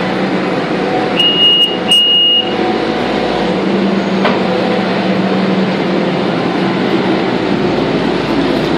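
Kubota SVL90 compact track loader's diesel engine running steadily under work. Two short high beeps come a bit over a second in.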